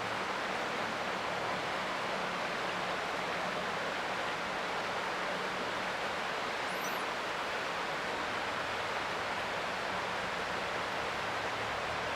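Creek water flowing in a steady rushing hiss, with one faint high chirp about seven seconds in.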